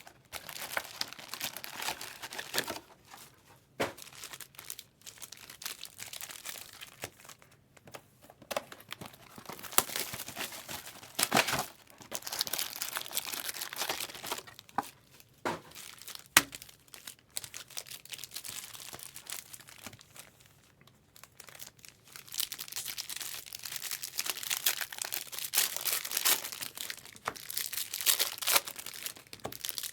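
Foil trading-card pack wrappers crinkling and tearing as packs are opened, in uneven spells with a few sharp clicks and some quieter stretches.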